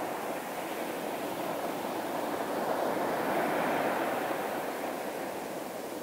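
Ocean surf: waves breaking and washing in as a steady rush, swelling to its loudest about halfway through and easing off after.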